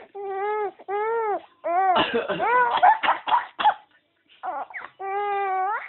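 A five-month-old baby laughing in a run of high-pitched squealing calls, each about half a second to a second long, the last one rising in pitch at its end. A rougher, noisier burst comes about two seconds in.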